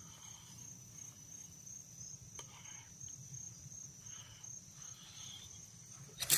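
Crickets chirping in a fast, even, high-pitched pulse, faint and steady, with a sudden knock near the end.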